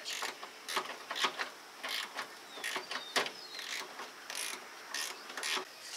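Hand socket ratchet clicking in short, irregular strokes as a bolt is turned in the truck's engine bay.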